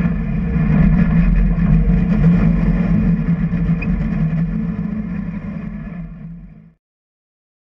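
MG Midget's engine running steadily at low speed, heard from its open cockpit as a low drone. The sound fades away and stops about two-thirds of the way through, leaving silence.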